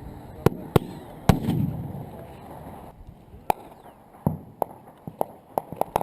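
Small-arms gunfire: a string of about ten single shots at uneven spacing, the loudest a little over a second in followed by a rumbling echo, with several quicker shots near the end.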